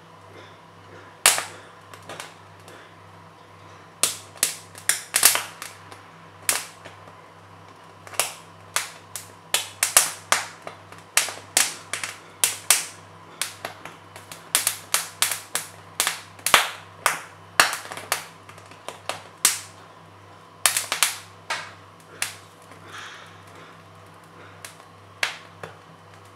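Sweet corn kernels popping and crackling as the cob roasts and chars over an open gas flame: sharp, irregular pops, sometimes several a second, over a steady low hum.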